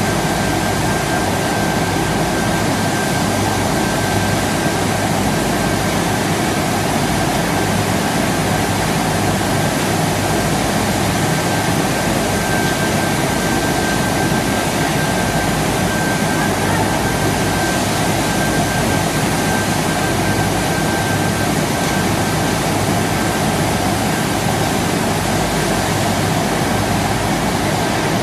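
Portable belt conveyors running steadily: a loud, even machine roar with a constant high whine on top.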